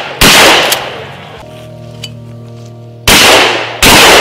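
Shotguns firing: one blast just after the start, then two more about three seconds in, under a second apart. Each blast has a long fading echo.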